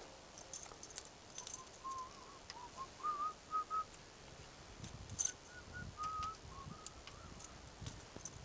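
A run of short whistled notes near one pitch, wavering and stepping up and down like a tune, with scattered light clicks and a low rumble in the second half.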